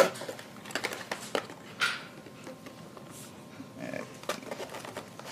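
Cardboard toy packaging being opened by hand: a sharp knock at the start, then scattered clicks and handling noises, with a short scraping rustle of cardboard about two seconds in.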